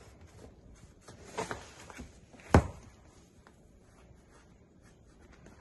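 A cat digging at and pushing into a corrugated cardboard scratcher: faint scratching and rustling on the cardboard, with a few knocks, the sharpest about two and a half seconds in.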